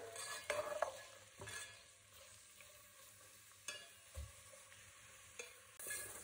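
Sliced onions frying in oil in an aluminium pot with a faint sizzle, stirred by a steel ladle that scrapes the pot in several separate strokes. The onions are still pale, at the start of being fried to brown.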